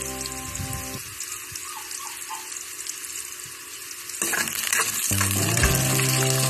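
Garlic, onion and ginger sizzling in hot oil in a wok, a steady hiss. About four seconds in it gets louder, and a spatula stirs through them near the end.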